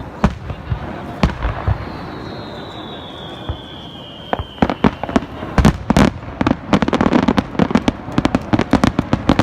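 Aerial fireworks going off: scattered bangs, a whistle that slides down in pitch over about two and a half seconds, then a rapid barrage of many bangs in quick succession through the second half.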